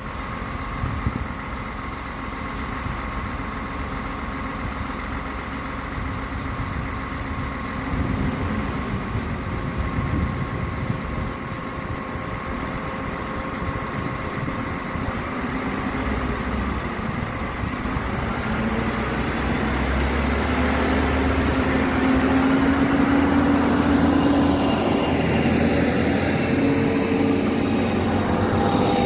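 SNCF X 73500-series diesel railcar (X 73604) pulling away and running past close by. Its diesel engine sound stays steady at first, then grows louder over the last ten seconds as the unit nears and passes.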